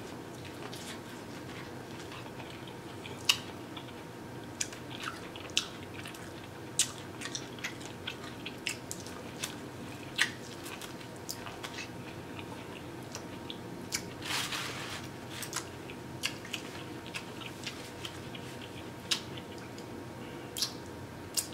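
Close-miked eating of buttered corn on the cob: irregular crisp bites as kernels are pulled off the cob, with wet chewing and mouth clicks. Near the end, fingers are licked.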